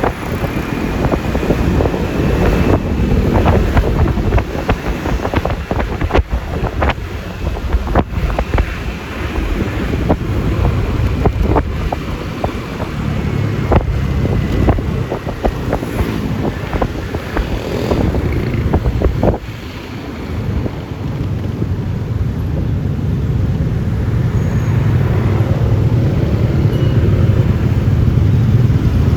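Yamaha Lexi LX 155 scooter's single-cylinder engine running under heavy wind buffeting on the microphone and road noise, with many short knocks through the first two-thirds. About two-thirds in the level dips briefly, then builds steadily as the engine note grows stronger.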